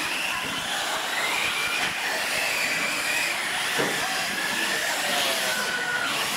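Several radio-controlled trophy trucks racing on a dirt track, their motors whining and rising and falling in pitch as the drivers work the throttle, over a steady noise of tyres and running gear.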